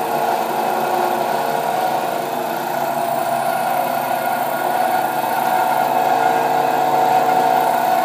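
DoAll 3613-20 36-inch three-wheel vertical bandsaw running steadily, its drive turning the band wheels and blade at a speed turned down on the variable-speed rheostat control. A steady machine hum with several even tones.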